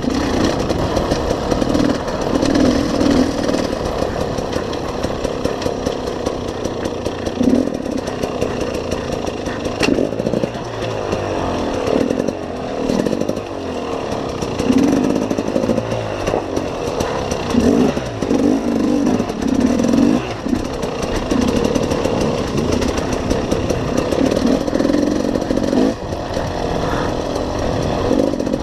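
Enduro dirt bike engine heard from on board, its revs rising and falling over and over as the throttle is worked along a rough, rocky trail.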